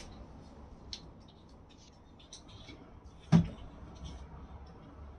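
Quiet room with scattered faint clicks and rustles, and one sharp knock about three and a half seconds in.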